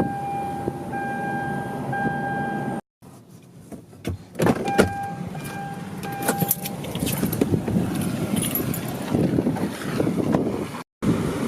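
Car sounds: a steady electronic chime tone that stops and starts, sharp clicks and rattles a few seconds in, then wind buffeting the microphone that grows stronger near the end.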